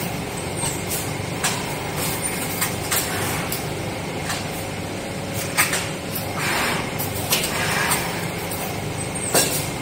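Automatic screen-printing machine's feeder running with a steady mechanical hum. Sharp clicks come every second or two, and there are a few short air hisses from its pneumatic parts as it picks plates from the carousel stacks and conveys them.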